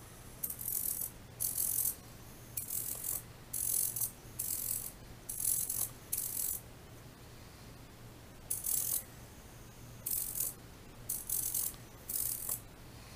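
Small radio-control servo in a model arm's wrist whirring in about a dozen short bursts, each under half a second, as it swings the wrist back and forth through a 90-degree turn. There is a longer pause a little past the middle.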